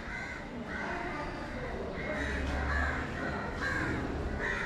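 Crows cawing, about six calls in a row, with a brief low rumble underneath about two seconds in.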